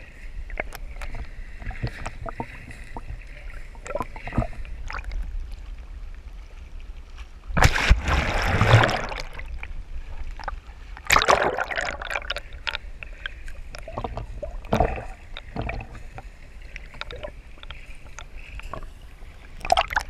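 Water sloshing and splashing against a GoPro's waterproof housing as it moves through shallow sea water and at the surface, with scattered small clicks and pops. A few louder splashes stand out, the loudest about eight seconds in and another about eleven seconds in.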